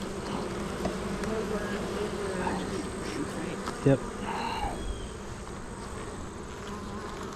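Many honeybees buzzing steadily in a low, even hum from an opened hive. The colony is crowded and honey-bound, and the keepers call it cranky and not happy.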